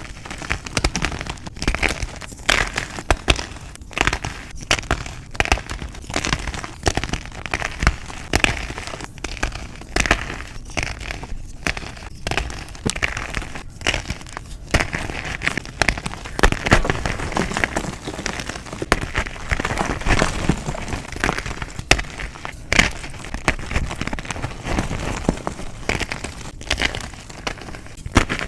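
Reformed gym chalk being crushed and crumbled: a continuous run of crunches and crackles made of many small, sharp snaps.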